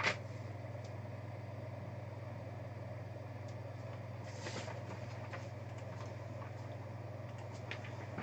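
Steady low hum of room tone with a few faint clicks and a brief soft rustle about four and a half seconds in.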